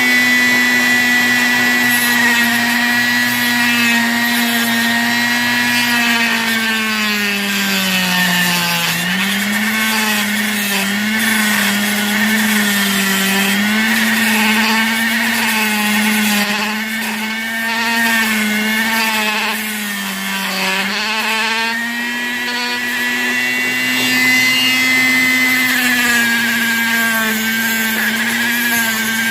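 Handheld variable-speed rotary tool on a low speed setting, spinning an abrasive cutoff wheel as it cuts into metal: a steady high whine whose pitch sags and wobbles while the wheel is pressed into the cut, from about seven seconds in until about twenty-one seconds, then rises back as the load comes off.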